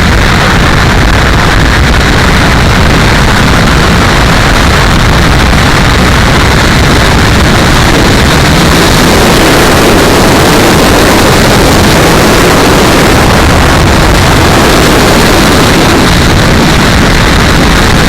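Steady loud rushing noise of an E-flite T-28 electric RC airplane in flight. A faint propeller tone rises and falls through the middle as it passes.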